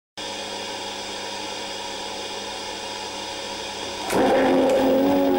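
Steady hiss and hum of an old film soundtrack running over blank leader. About four seconds in, music starts suddenly and louder, with held notes.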